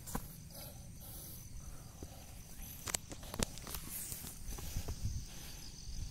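Footsteps and rustling through grass on a dirt hiking trail, with scattered short knocks. A steady high insect drone runs underneath.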